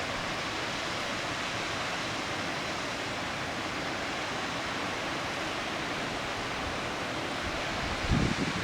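Mountain waterfall rushing as a steady, even roar of falling water. Near the end, low gusts of wind buffet the microphone.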